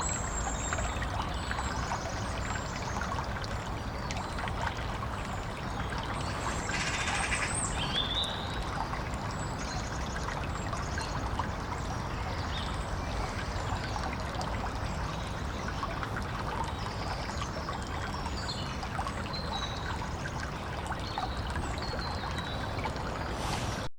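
Woodland stream trickling steadily, with small birds giving short, high chirps now and then above the water.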